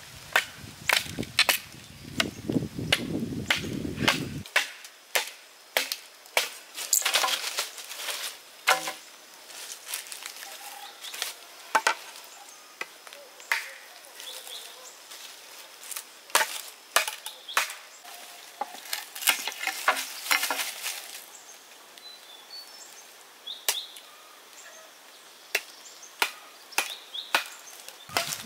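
Irregular sharp knocks of chopping on wood, about one or two strikes a second with short pauses, thinning out in the last few seconds.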